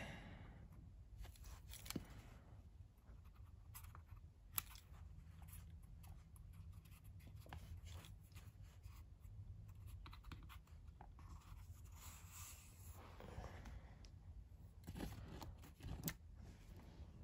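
Faint scraping and small clicks of a plastic HO scale model locomotive being handled, with a pencil tip rubbing along its shell. A slightly louder stretch of scraping comes about twelve seconds in.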